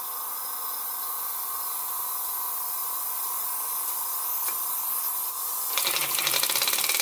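Compressed air hissing steadily from the air supply into a small home-made oscillating (wobbler) engine. About six seconds in the engine starts turning over on the air, with a fast, even clatter.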